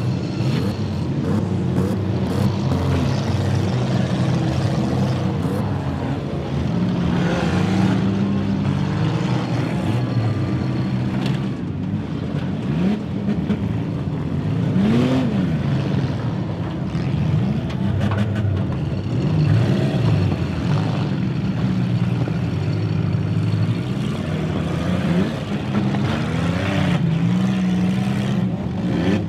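Many demolition derby cars' engines running at once, revving up and down in turn, with scattered sharp crunches of metal as cars ram one another.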